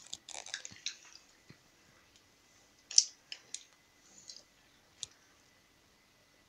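Scattered small clicks and mouth smacks close to the microphone as the children suck on sour hard candy. The sharpest click comes about three seconds in, with a few softer ones after it, against a quiet room.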